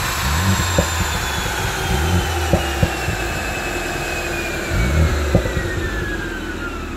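BMW Z4 sDrive20i's turbocharged four-cylinder engine blipped a few times on a popcorn exhaust tune, each rev falling away with sharp exhaust pops and cracks on the overrun. A high whine slides slowly down in pitch underneath.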